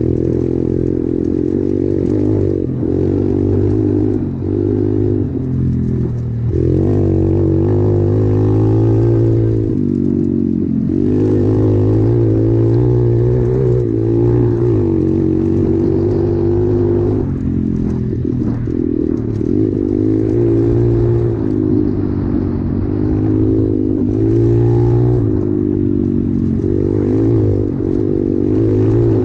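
SSR 125 pit bike's single-cylinder four-stroke engine running under way on a dirt road. Its pitch climbs and drops back again and again as the throttle is rolled on and off.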